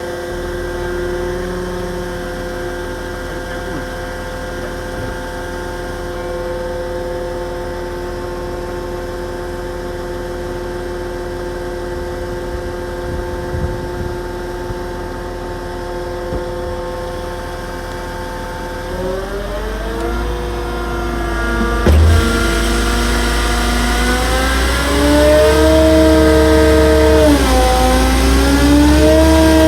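Mercedes Actros truck's diesel engine running steadily, then revving up about two-thirds of the way through and holding at higher revs, with a short knock as it rises and a brief dip in speed near the end.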